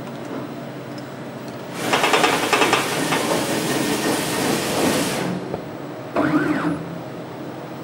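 Bridge laser machinery moving the laser head over the embroidery hoop: a loud, noisy mechanical run starts about two seconds in and stops sharply about three and a half seconds later. A short motor whine that rises and falls follows about six seconds in, over a steady machine hum.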